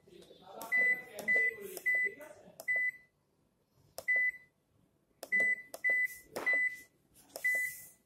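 Haier top-load washing machine's control panel beeping at each press of the DIY button as the water-level setting is stepped up: about nine short, identical high beeps at uneven intervals, each with a small click of the button just before it.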